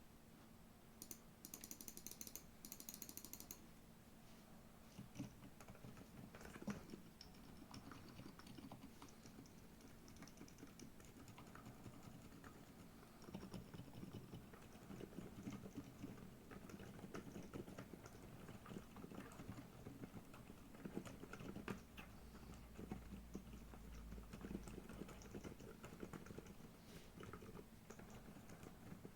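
Typing on a Redox Manuform split keyboard with Silent Green Lemon tactile 45gf switches and XDA keycaps: a quiet, steady run of soft keystrokes.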